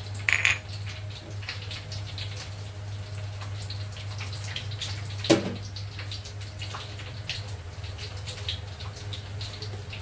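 Whole white peppercorns scattered onto a stone mortar, with many small clicks and taps over a steady low hum. A louder clatter just after the start and a single sharp knock about five seconds in.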